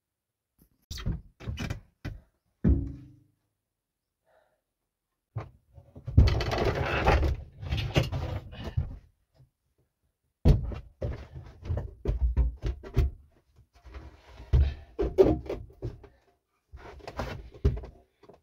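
Knocks, thuds and scraping as objects are shifted and set down on a wooden plank floor, with one clank about three seconds in that rings briefly.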